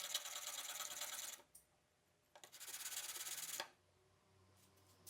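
Steel chisel rubbed by hand on sandpaper laid flat on a melamine board, honing the edge: two scraping strokes of about a second and a half each, a second apart.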